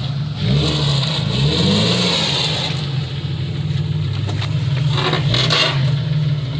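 Jeep Cherokee XJ's engine working at low speed as it crawls over rocks, its pitch rising and falling with throttle in the first couple of seconds, then running steadily. A brief scraping noise about five seconds in.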